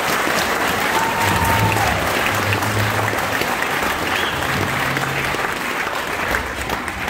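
Audience applauding steadily after a children's stage performance, with one voice calling out in a long rising-and-falling call about a second in.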